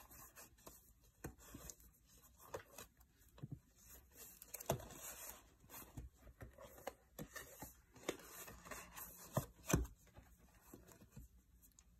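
Soft handling noises as paper notebooks are slid into a leather A5 planner cover: paper and leather rubbing with scattered light clicks and knocks, a sharper knock about midway and two close together near the end.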